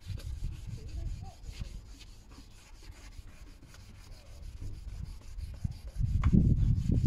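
Fine-grit (2000–2500) wet-and-dry paper rubbed back and forth by hand on a heat-hazed plastic headlight lens, cutting back the damaged surface. A louder low rumble starts about six seconds in.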